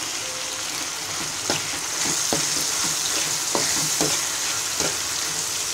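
Onion-tomato masala with freshly added spices sizzling in hot oil in a metal karahi, stirred with a spatula that strikes and scrapes the pan about five times.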